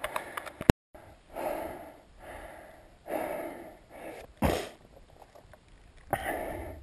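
A hiker breathing hard close to the camera microphone after a steep climb, with a heavy exhale about every second and a half and one sharp puff of breath about two-thirds of the way through. In the first second there are a few crunching footsteps on a rocky path.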